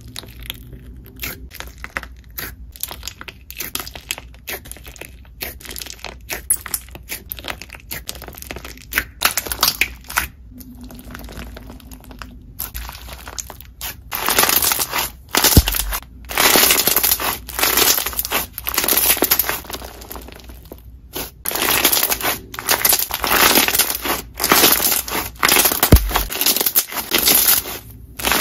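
Crunchy slime packed with clear beads being poked and pressed by fingers, giving rapid crackles and pops. The crunching gets louder, in longer squeezes, about halfway through.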